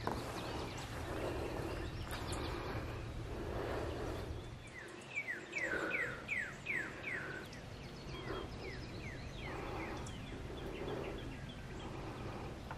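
A songbird singing a quick series of about six clear whistled notes, each sliding down in pitch, then a fainter, higher series of falling notes, over a steady low outdoor rumble.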